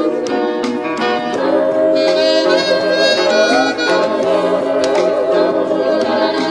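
Background music: an instrumental tune with a sustained melody line.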